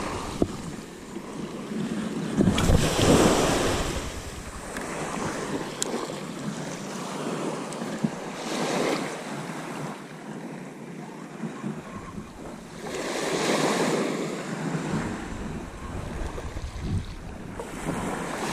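Small waves breaking and washing up a sand-and-shingle shore on a flat-calm sea, swelling about every four to five seconds, with a low rumble on the microphone at times.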